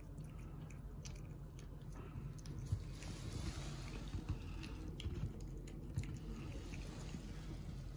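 Pomeranian puppy licking and mouthing a person's fingers: irregular small mouth clicks and smacks, with a few sharper clicks about three, four and six seconds in.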